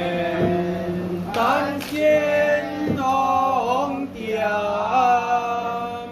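A voice chanting in long, held notes that slide in pitch, over a steady low hum, with two sharp knocks about two and three seconds in.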